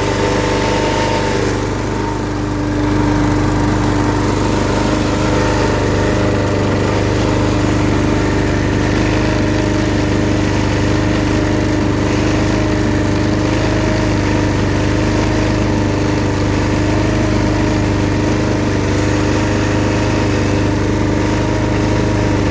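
Billy Goat LB50Q leaf vacuum's small engine running steadily at a constant speed, with a steady hum and a rushing fan noise, dipping slightly about two seconds in.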